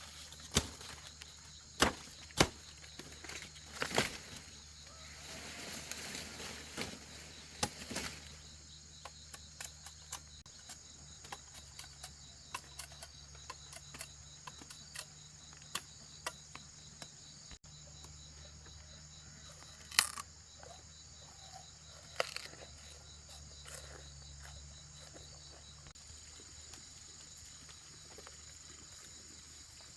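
Insects chirring steadily, with scattered sharp knocks and clicks: several in the first few seconds and a loud one about twenty seconds in.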